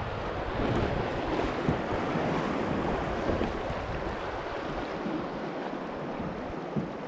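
Rushing, churning river water of a shallow rapid around a kayak, with wind buffeting the microphone; the rush eases somewhat in the last few seconds as the water calms.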